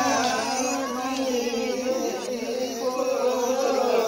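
Group of voices singing a Limbu (Yakthung) palam song, the sung melody of the Yalang hand-in-hand circle dance.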